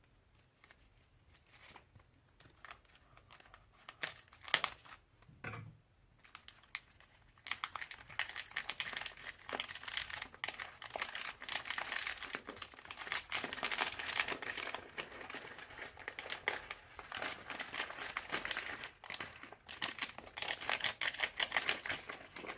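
Crunchy bead-filled slime being squeezed and kneaded by hand: a few scattered crackles at first, then dense, continuous crackling and popping from about seven seconds in.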